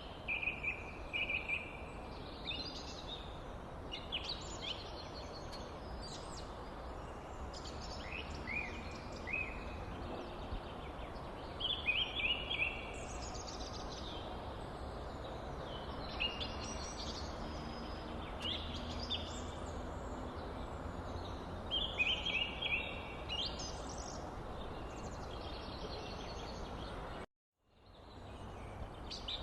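Birds singing: short chirping phrases repeating every second or two over a steady background hiss, with a brief cut-out near the end.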